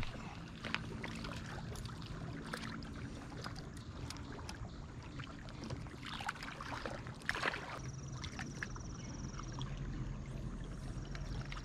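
Steady low drone of a distant motorboat engine, with scattered small clicks from a spinning reel being handled and cast. A brief louder rustle comes a little past halfway.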